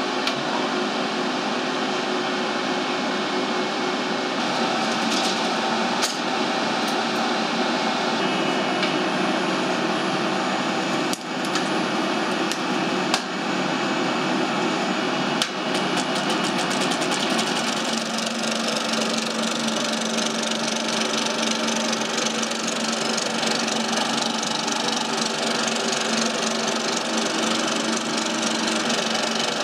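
A 35mm film projector and projection-booth machinery whirring steadily, with a few sharp clicks and knocks as film is threaded through the projector's gate and rollers. About eighteen seconds in, a lower steady hum joins as the projector runs the print.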